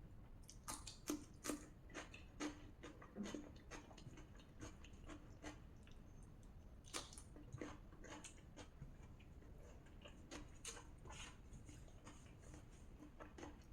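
Chewing of rajma and rice, close to the microphone, heard as faint, irregular wet clicks, a few a second with pauses.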